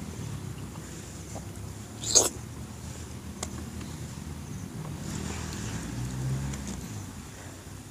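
Mukbang eating sounds: a short, loud sucking intake of air at the mouth about two seconds in, then faint soft squishing as a ripe mango is peeled and squeezed by hand, over a low steady hum.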